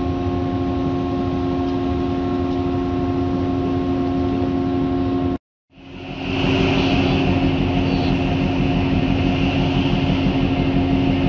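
Steady machinery hum from a container ship, several low held tones over a noisy rumble. It cuts out for a moment about five seconds in and returns with a brighter hiss on top.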